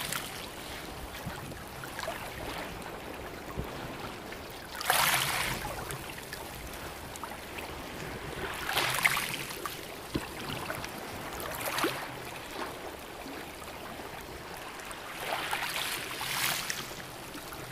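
Small waves lapping on a sandy shore: a soft wash every three to four seconds over a steady hiss.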